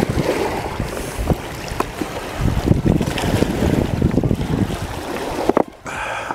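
Wind buffeting the microphone, with river water washing against the rocky shore and scattered knocks of stones shifting underfoot; one sharper knock comes near the end.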